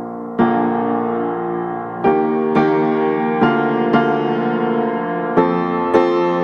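Background piano music: slow notes and chords struck one after another, each ringing on and fading.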